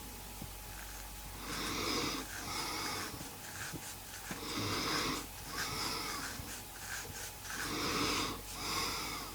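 A man snoring in his sleep, wheezy breaths in and out. There are three breath cycles, one about every three seconds.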